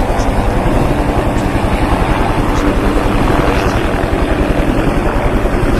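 Helicopter running close by: the main rotor beats fast and evenly over the steady whine of the engine.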